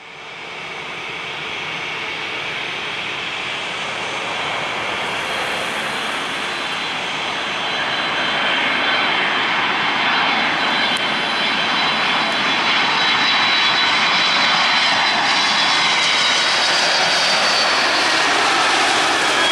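Jet engines of a Boeing 757-200 on landing approach with gear down, growing steadily louder as the airliner nears, a rushing roar with a steady high whine on top.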